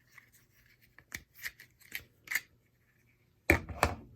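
A multitool being handled: four light scraping clicks about half a second apart, then two sharp, louder clicks near the end, a third of a second apart.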